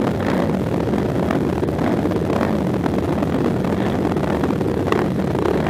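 Several racing quads' engines idling together on a start line, with riders blipping their throttles so the pitch keeps rising and falling.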